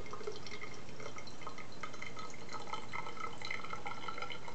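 Hot water poured in a thin stream from a stainless thermos into the reservoir of a ceramic shaving scuttle: a steady trickle with many small splashing plinks as it fills.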